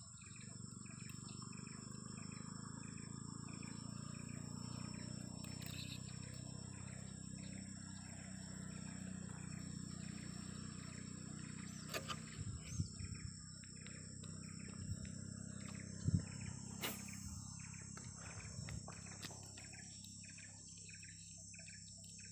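Insects buzzing steadily at a high, even pitch, with a short chirping call repeated over and over. A few sharp clicks and knocks come about twelve and sixteen seconds in.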